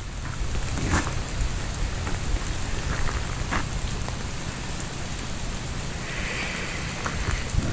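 Freezing rain falling steadily, with a few short, sharp ticks and a low rumble underneath.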